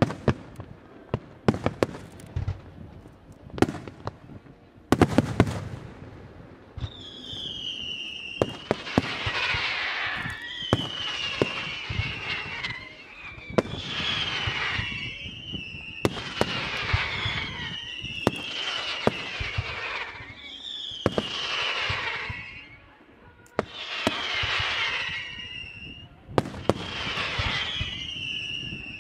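Aerial fireworks: a string of sharp bangs from bursting shells, then a repeating pattern about every two and a half seconds of a bang, a whistle falling in pitch and a crackling hiss from the burst.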